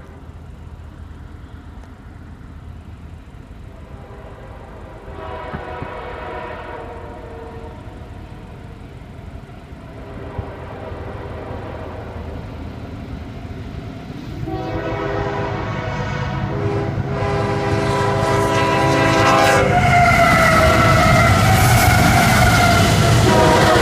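An approaching CSX diesel freight locomotive sounds its horn, first a short blast and then a longer one with a brief break. It grows steadily louder, and the rumble of engine and wheels builds. Near the end the locomotive passes close by and the horn's pitch falls.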